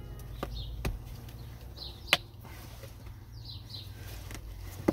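A few sharp clicks and snaps as the leather cover of a VW Passat B8 seat is pressed back onto the frame and its plastic retaining clips are seated. The loudest snap comes about two seconds in and another at the very end. Birds chirp repeatedly in the background over a steady low hum.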